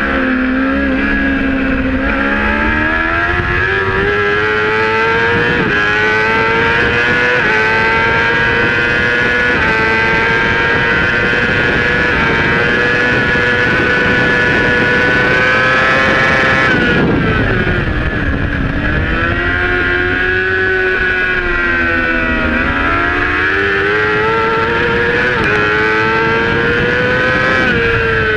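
Racing sport bike's engine at high revs, heard from onboard with wind rushing past. The pitch climbs through the gears, holds high, falls steeply about 17 seconds in as the throttle closes, then climbs again with a few short steps and dips once more near the end.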